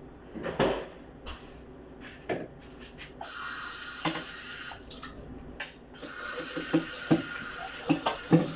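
Kitchen tap running into a sink, turned on about three seconds in, stopping briefly, then running again. Knocks and clatter of cups and lids being handled come before it and over it.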